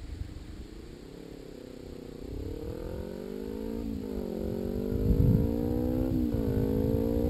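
Kawasaki Ninja 250R parallel-twin engine with a Level One Racing slip-on exhaust accelerating and shifting up twice, its pitch climbing then dropping at each shift, growing louder as the bike approaches.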